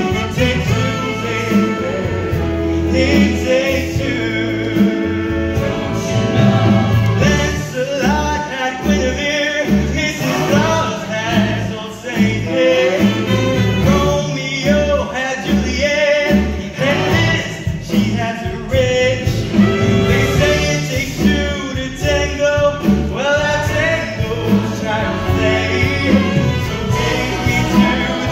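Live musical-theatre song: a male lead singing into a stage microphone over band accompaniment, with backing ensemble voices.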